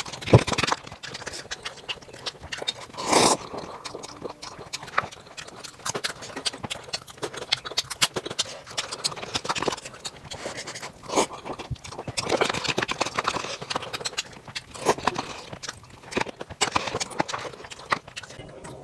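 Close-miked eating sounds: noodles slurped in, with chewing and many wet mouth clicks, and louder slurps several times.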